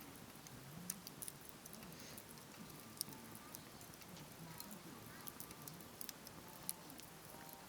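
Wood campfire burning, crackling with sharp, irregular pops and snaps over a faint steady hiss.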